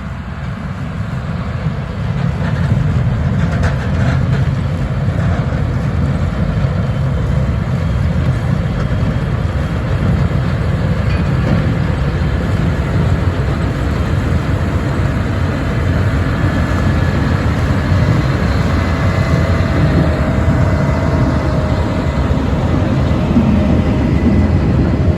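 Self-propelled sugar beet harvester working: a steady, loud low rumble of heavy diesel machinery with a rattle over it, growing louder over the first two seconds.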